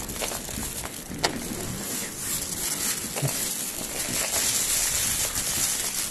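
Thin plastic bag rustling and crinkling as it is handled, with a few sharp clicks, the loudest a little over a second in.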